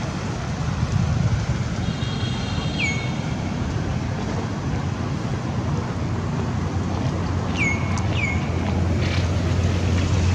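Outdoor ambience: a steady low rumble, with a few short high chirps that drop in pitch, one about three seconds in and two close together near the end.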